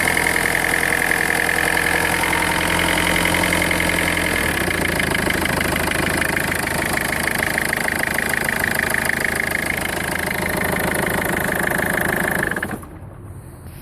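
Peugeot 1.4 HDi four-cylinder turbodiesel running at idle, with a steady high whine over the engine note; this is the strange noise being asked about. The engine note shifts slightly about four seconds in, and the sound cuts off near the end.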